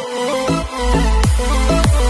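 Electronic dance music: a synth melody, then a heavy bass comes in about half a second in, with a deep kick drum that drops in pitch roughly every 0.6 seconds.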